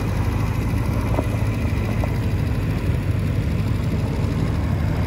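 Small cruiser-style motorcycle engine running steadily at low revs as the bike rolls slowly.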